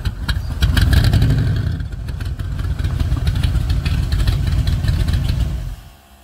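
Shelby Cobra's engine running at low speed through its side exhaust pipes as the car rolls in, louder for a moment about a second in. The engine is switched off and cuts out suddenly near the end.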